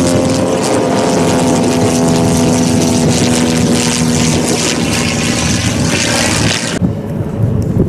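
Fairchild PT-19 trainer's engine and propeller droning loudly as the plane flies past, the pitch steady and sinking slightly. About a second before the end the sound cuts off abruptly, leaving a dull, uneven rumble.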